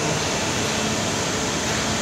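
TOS WHQ 13 CNC horizontal boring mill running: a steady mechanical hiss with a low hum, one hum tone dropping out just after the start.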